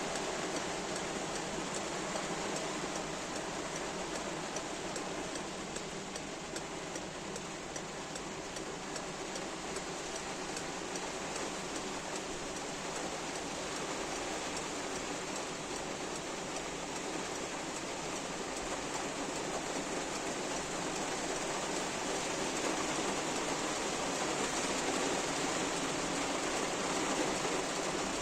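Heavy rain falling on a car, heard from inside it: a steady dense hiss of drops on the roof and windows, getting a little louder near the end.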